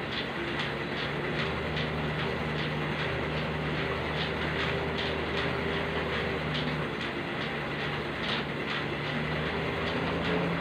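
Elliptical cross-trainer in use: a steady mechanical whir with a low hum that comes and goes, and a regular click about twice a second as the pedals go round.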